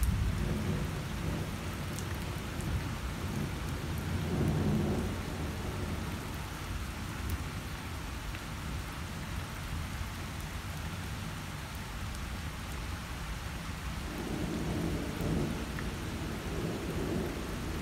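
Thunderstorm: steady rain with low rolling thunder that swells right at the start, again about four seconds in, and once more near the end.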